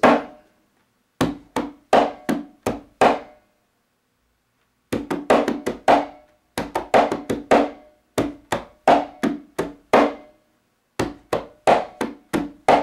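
LP conga drum played with bare hands in a heel, tip, slap, tip, heel, slap pattern, repeated several times: quick groups of about six strokes, each group followed by a short rest on beat four.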